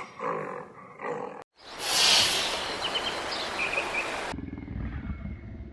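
A big cat roaring: after a few short sounds and a brief silence, a loud, rough roar starts about two seconds in and tails off, followed by low rumbling.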